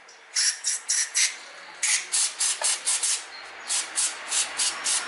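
Short hissing spray bursts squirted into a car throttle body to wash dirt off its butterfly plate. They come in three quick runs of about four to six squirts each, some three to four a second.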